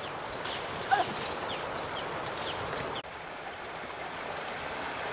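Steady rushing of river water, with many short, high bird chirps over it and one louder call about a second in.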